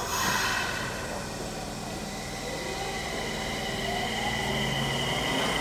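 Mitsubishi VVVF inverter and traction motors of a Nagoya Subway 5050 series car (hybrid SiC type, thought to be) starting from a station. Steady high inverter tones grow louder from about three seconds in, and a motor whine then climbs in pitch as the train accelerates.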